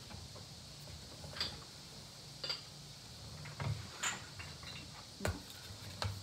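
Ceramic dishes being handled and set down: about six light, separate clinks and knocks spread over a few seconds.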